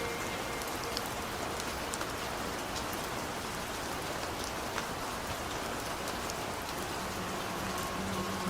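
Steady rainfall: an even hiss with scattered sharp drop ticks. Faint low music notes come in near the end.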